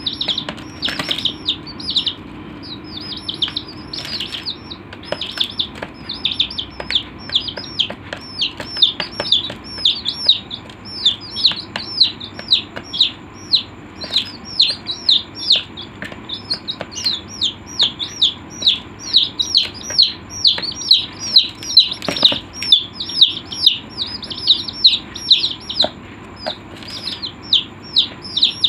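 Chicks peeping continuously: a steady stream of short, high, downward-sliding peeps, several a second, from more than one bird, with a few soft knocks.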